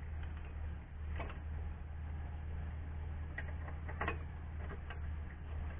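Scattered light metallic clicks and ticks from a motorcycle's front wheel and brake caliper being handled, over a steady low hum.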